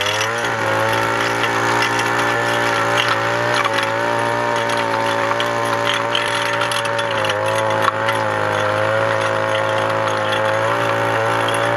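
Small engine of a hand-held pole cultivator (mini tiller) running steadily as its tines work the soil, its pitch wavering slightly.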